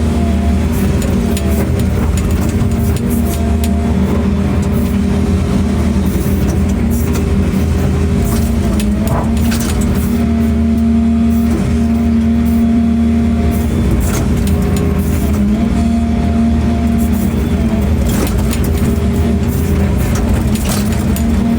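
A large engine running steadily with an even drone, with scattered short clicks and knocks over it.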